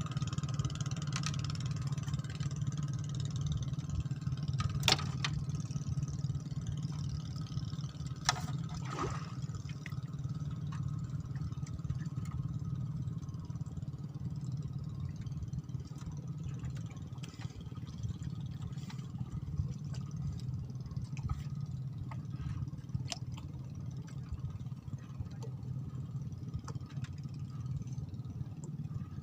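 A steady low engine hum, with two sharp clicks about five and eight seconds in.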